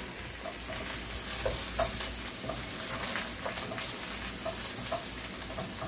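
Chicken wings sizzling in a pot as they are stirred with a wooden spoon, with scattered light knocks and scrapes of the spoon against the pot.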